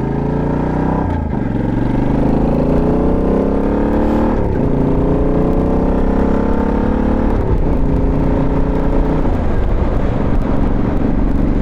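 Motorcycle engine accelerating through the gears: the pitch climbs, drops at each of three upshifts, then settles into a steady cruise.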